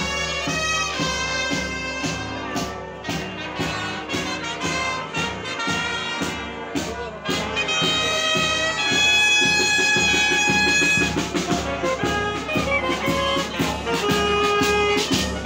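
Wind band playing, with saxophone, clarinet and brass instruments, growing louder about halfway through.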